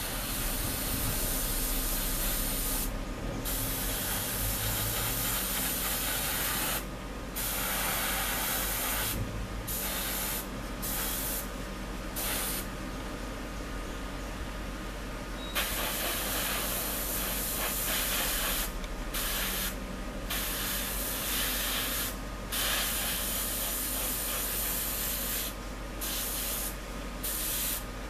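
Airbrush spraying paint: a steady hiss of air and paint that stops and starts again many times, with short breaks of under a second as the trigger is let off.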